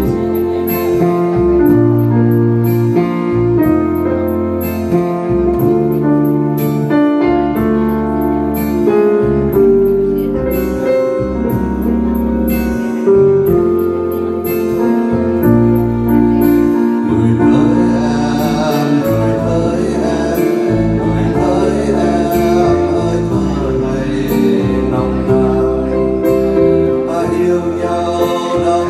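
Yamaha Clavinova digital piano playing a slow song with sustained chords over a low bass line; a man's singing voice comes in about halfway through.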